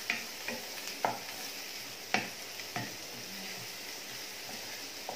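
Chopped onion and green capsicum sizzling in oil in a non-stick pan while a wooden spatula stirs them, knocking and scraping against the pan five or six times in the first three seconds, then a steadier frying hiss.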